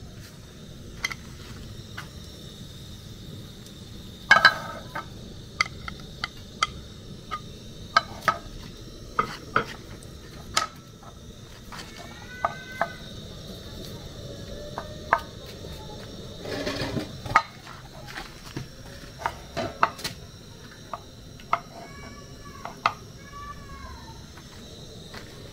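Pots, bowls and metal utensils knocking and clinking irregularly during food preparation, with a brief scrape partway through. A few short rising-and-falling animal calls sound twice in the background.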